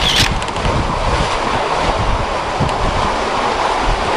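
Strong wind buffeting the microphone over the rush of rough sea alongside a sailing boat, with a brief high hiss right at the start.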